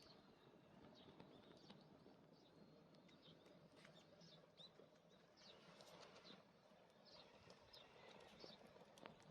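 Faint hiss of steam escaping from under the lid of an aluminium mess tin cooking rice over a fire, with irregular little squeaks and spits of boiling water at the lid and a few crackling clicks. Steam pushing out this hard means the rice is nearly cooked.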